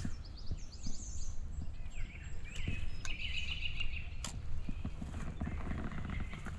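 Rustling and crunching in dry leaves with sharp clicks and knocks from gear being handled, while small birds chirp in short high phrases about a second in and again around the middle.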